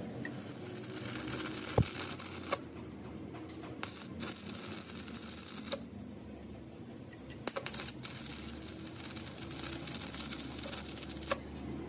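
Stick arc welding on the joint of a broken steel truck driveshaft: the electrode's arc crackles and sizzles in several runs with short breaks, with a few sharp clicks. The crackle stops about a second before the end.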